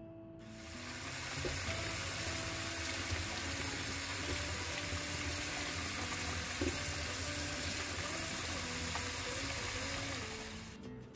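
Tap water pouring onto a whole watermelon as its rind is washed and rubbed by hand under the faucet: a steady splashing hiss that starts just after the beginning and cuts off shortly before the end.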